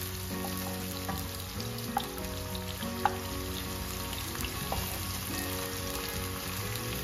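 Sliced onions sizzling in hot oil in a nonstick wok, stirred with a wooden spatula that clicks against the pan a few times, most sharply a little after three seconds in. The onions are at the early stage of frying, meant to go on until golden brown.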